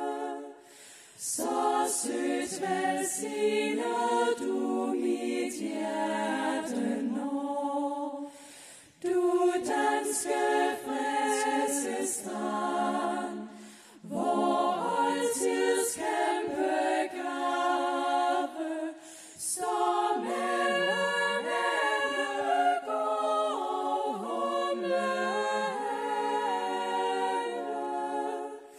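Women's a cappella vocal group singing in close harmony into microphones, in phrases of several seconds with short breaks between them.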